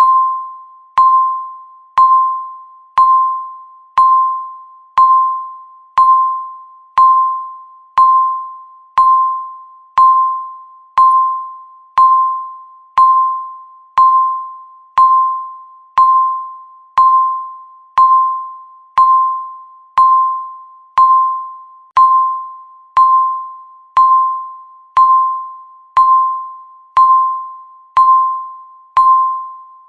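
Countdown timer's per-second beep: a bell-like tone struck once a second, each dying away before the next, about thirty in a row.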